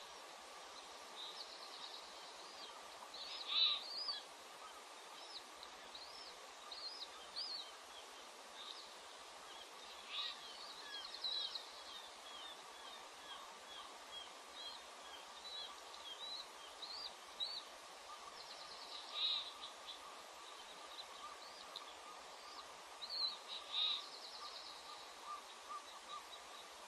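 Bird calls: groups of short high chirps and quick trills that come back every few seconds, over a faint steady hum.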